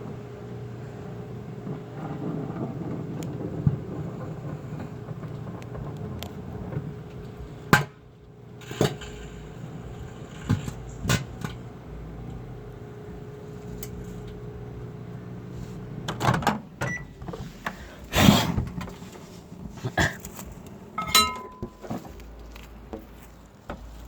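Microwave oven running with a steady hum while a car charger heats inside it, with a sharp click now and then. About two-thirds of the way in the hum stops, and a run of sharp clicks and knocks follows.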